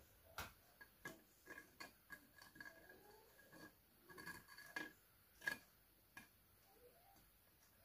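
Faint, scattered clicks and taps of Graham crackers being laid and pressed into a glass baking dish, the loudest tap about five and a half seconds in.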